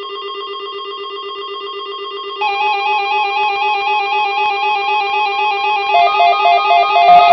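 Weather alert radios sounding their electronic alert tones as they are activated by a NOAA Weather Radio test broadcast: rapid pulsing beeps. A second tone joins about two and a half seconds in and a third about six seconds in, getting louder.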